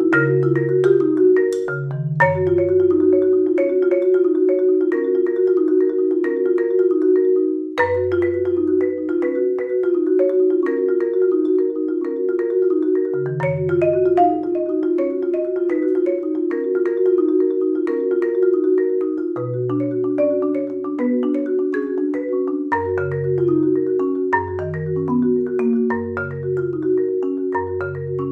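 Solo concert marimba played with four mallets: a fast, continuous stream of repeated mid-register notes over long low bass notes that change every second or two.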